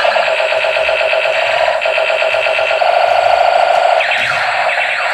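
Battery-powered toy robot playing its electronic sound effects: a loud, fast, warbling alarm-like beeping, with laser-like sweeps about four seconds in.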